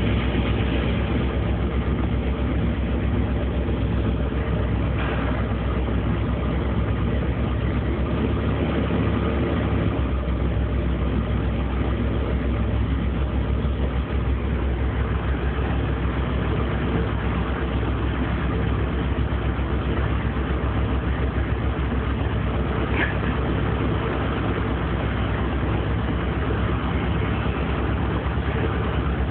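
A machine's engine running steadily with a low, even hum that does not change in pace.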